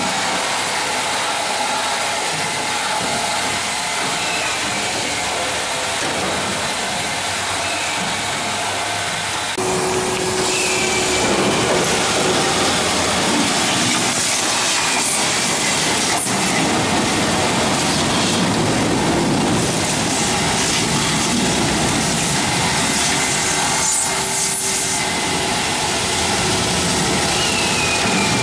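Vacuum cleaner running, drawing debris out of the aircraft floor structure through a metal wand and hose. It gets louder about ten seconds in.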